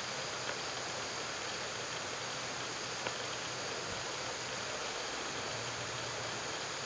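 Steady, even hiss of outdoor background noise, with a faint high steady tone over it and a couple of soft clicks; no elk call is heard.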